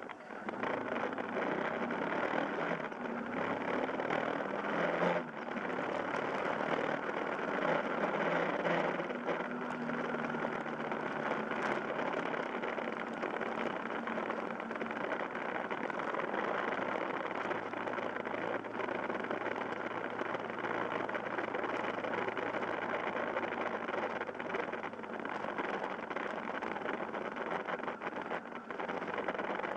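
Yamaha Fazer YS250's single-cylinder engine running as the motorcycle rides along, its note shifting up and down with throttle, under a steady rush of wind noise on the microphone.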